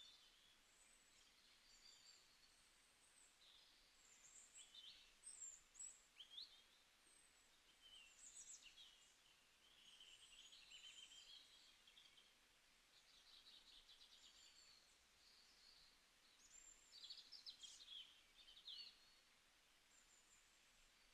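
Faint birdsong: several birds chirping with short high notes, sliding calls and quick trills over a low background hiss.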